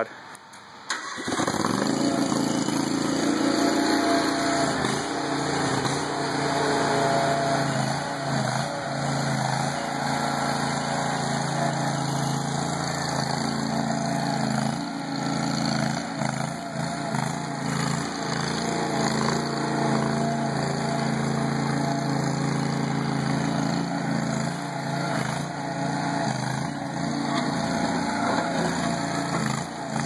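Engine of a Ramrod 1150 tracked stand-on mini skid steer starting about a second in, then running steadily while the machine is driven.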